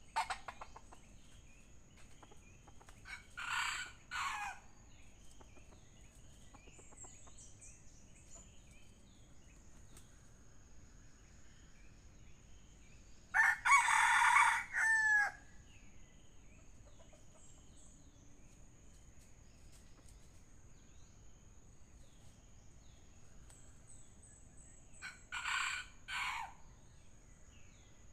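Red junglefowl rooster crowing three times, a short clipped crow each time; the middle one, about halfway through, is much louder than the other two. A steady high insect drone and small bird chirps run underneath.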